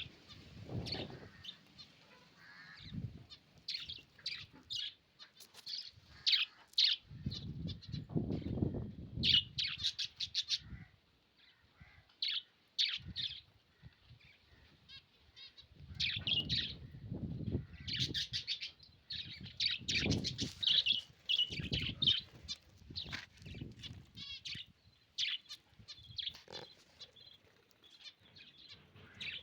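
Pet lovebirds chirping in many short, sharp, high calls, coming in rapid clusters. Several bursts of low rumbling noise come in between the calls.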